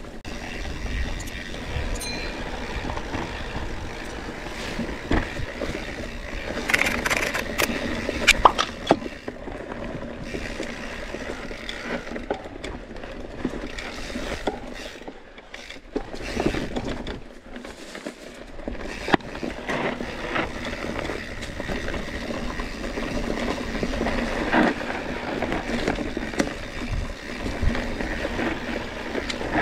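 Scott Spark RC full-suspension mountain bike ridden fast down dry, dusty singletrack: tyres rolling and scraping over the dirt, chain and frame rattling with sharp knocks over bumps, and wind rushing over the action-camera microphone. It eases for a few seconds about halfway through.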